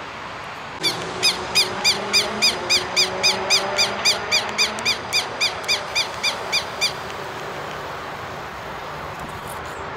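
Southern lapwing (quero-quero) calling: a rapid series of about twenty sharp, high notes, roughly three or four a second, for about six seconds, then stopping. It is heard over a steady background hum.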